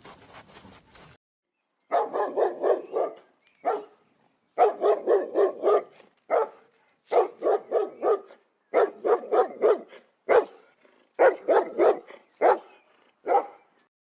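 Dog barking in rapid runs of several barks each, with short pauses between the runs. It starts about two seconds in.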